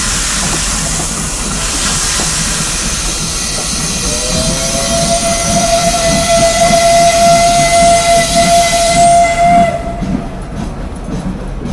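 Steam locomotive venting steam with a loud hiss. About four seconds in, its steam whistle sounds one long steady blast, held for about five seconds. Whistle and hiss cut off together near the end, leaving a lower rumble.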